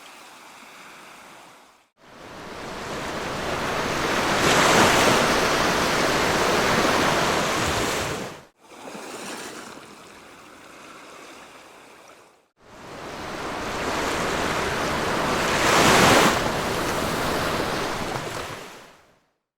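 Sea waves breaking and washing up a beach, heard in separate stretches cut apart by brief silences. In two louder stretches the surf swells to a crash, about five seconds in and again near the end; the stretches between are quieter wash.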